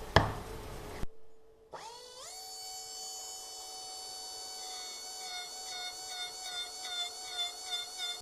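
A sharp knock right at the start, then a die grinder spinning up about two seconds in and running at a steady high-pitched whine, its pitch wavering slightly over the second half as it cuts into hardened Milliput epoxy putty.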